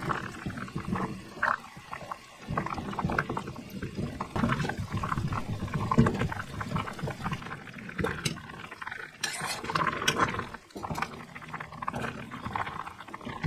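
Soy-and-sugar braising liquid boiling hard around quail eggs in a stainless steel pot, bubbling and popping throughout. Rice wine is poured in as a thin stream at the start, and a spoon clinks against the pot near the end.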